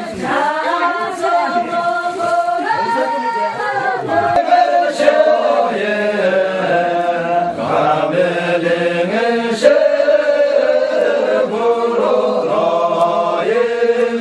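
Voices singing a slow, chant-like song, holding long notes that step up and down between pitches.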